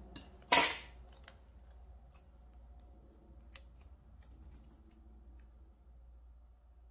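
Scissors make one sharp snip through a paper sticker about half a second in. Faint rustles and light taps follow as the sticker paper is handled and pressed onto a planner page.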